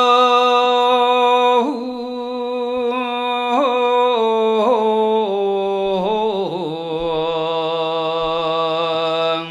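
A single voice chanting a Korean Buddhist verse in long drawn-out notes that step down in pitch several times, wavering at each change.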